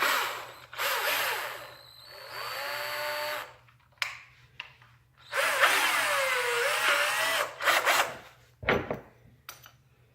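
Cordless drill run in several short bursts, the motor's whine rising and falling in pitch as the trigger is squeezed and eased.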